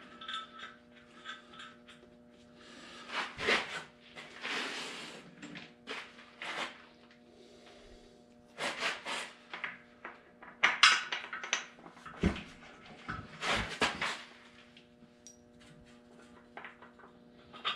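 Irregular clinks, knocks and scrapes of metal parts and tools being handled and fitted at a Farmall Cub's rear wheel hub, coming in short bursts every second or two, with one longer rattling scrape about four seconds in. A steady low hum runs underneath.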